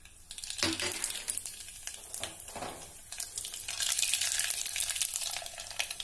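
Mustard seeds sizzling and crackling in hot oil in a small saucepan, the dense popping getting louder from about halfway through: the first stage of a tadka.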